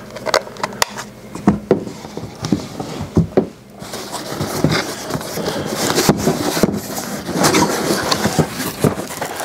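Handling and opening a cardboard shipping box: a few light knocks and clicks, then from about four seconds in a steady run of cardboard rubbing and scraping as the lid is worked off the box.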